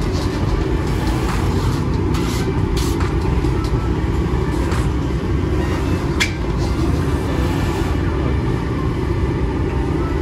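Steady low rumble of a rotating bakery bread oven and its machinery running, with a few sharp clicks and knocks as the breads and dough are handled.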